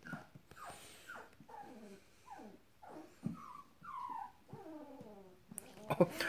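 Puppies yipping and whining in play: a string of short high calls, most sliding downward in pitch, about two a second. Some knocks and rustling come near the end.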